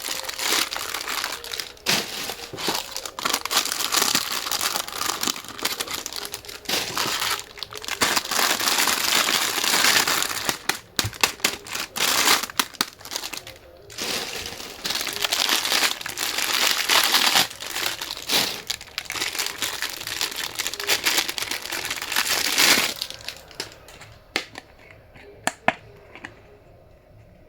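Dense crinkling and rustling of handled material, full of sharp crackles, thinning to a few light clicks about four seconds before the end.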